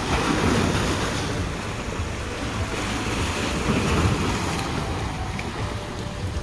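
Small sea waves breaking and washing over the boulders of a rocky shoreline, a steady rushing surf, with wind rumbling on the microphone.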